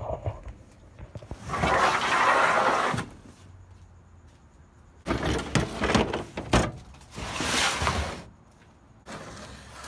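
A plastic folding table and other market gear being slid into a pickup truck's ridged bed and set down: long scraping slides with a cluster of knocks and thumps in between.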